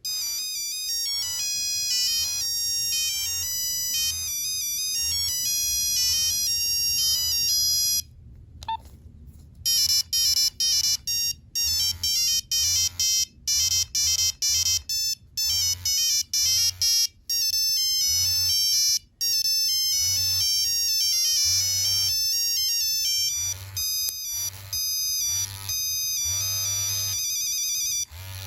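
Nokia 3390 monophonic ringtones playing through the phone's small speaker as a run of short, stepped beeping notes. About nine seconds in there is a brief pause with a single short beep, then a second, quicker melody.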